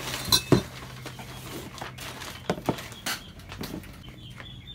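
Hard parts being handled and set down on a wooden table: two sharp clinks about half a second in, then a few lighter knocks and taps, over a steady low hum.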